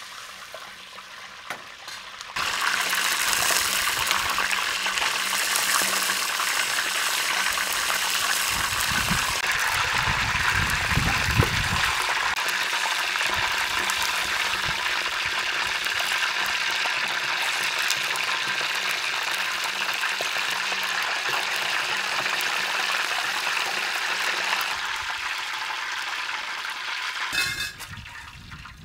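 Hot oil sizzling steadily around a whole ostrich leg deep-frying in a large pan, starting a couple of seconds in. The sizzling dies down near the end, followed by a few short knocks as the leg is set on a metal tray.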